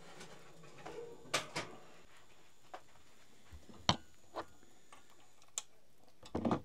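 Scattered light knocks and clicks, irregularly spaced, with a sharper knock about four seconds in and a short cluster near the end.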